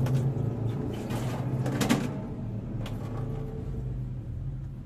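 A few short knocks and rustles, the loudest cluster about two seconds in, as someone moves about close to the microphone, over a steady low hum.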